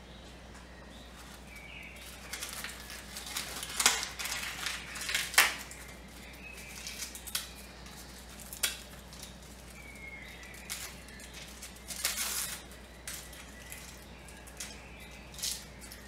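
Dry, papery garlic skins crinkling and rustling as fingers peel them off a whole garlic bulb, in irregular bursts with a few sharper crackles.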